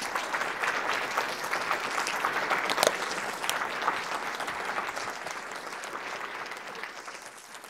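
Audience applauding, the clapping slowly dying away over the last few seconds.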